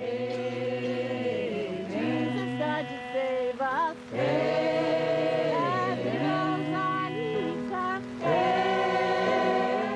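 A choir singing slowly in long held notes, pausing briefly about four seconds and eight seconds in.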